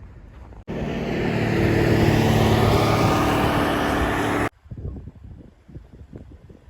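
A motor vehicle's engine running, loud and steady with a slight rise in pitch, starting and stopping abruptly after about four seconds.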